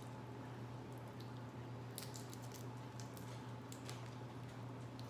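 Faint wet squishing and a few light clicks from hands peeling and handling boiled seafood shells, over a steady low hum.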